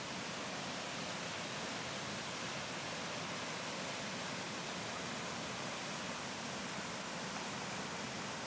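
Mountain river in spring flow rushing steadily, a constant even hiss of water.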